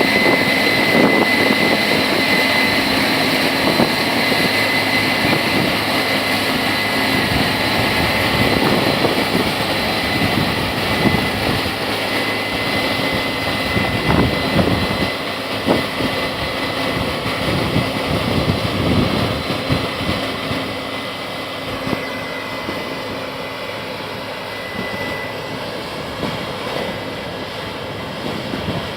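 Case IH Axial-Flow 8120 combine running steadily while harvesting soybeans: a dense machine drone with a constant high whine over it, easing slightly in loudness in the second half.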